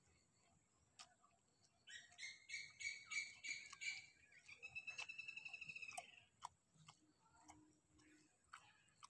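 A songbird singing: a run of repeated clear notes, about four a second, followed by a fast trill that bends up and back down. A few faint clicks sound around it.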